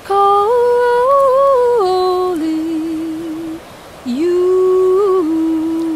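A woman's voice singing unaccompanied wordless held notes, close to humming. The first phrase steps up in pitch and back down, then breaks off about three and a half seconds in; a second phrase starts half a second later and glides up before settling.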